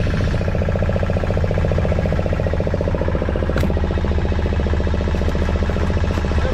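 Fishing boat's engine running steadily with a fast, even pulse, and a single brief click about three and a half seconds in.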